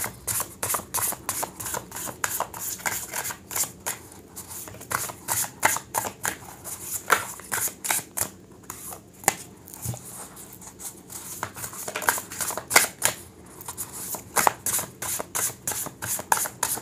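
Tarot cards being shuffled by hand, overhand, packets of cards pulled off the deck one after another. The result is a steady run of short, crisp card slaps and flicks, several a second.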